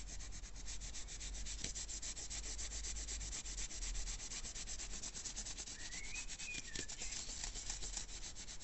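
A towel is rubbed over a hard, freshly set aluminium-powder casting in quick, steady back-and-forth strokes, buffing the cast to bring up a metallic shine.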